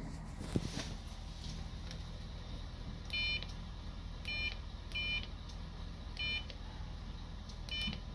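Five short electronic beeps at irregular intervals, keypresses on a bus fare validator, over a steady low hum.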